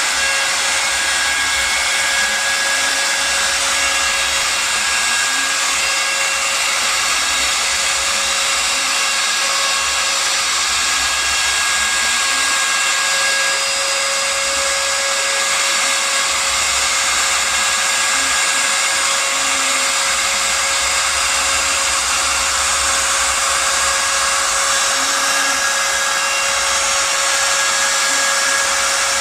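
Spindle of a home-built CNC router running steadily as it cuts, a constant high whine over a dense hiss with one steady tone held under it.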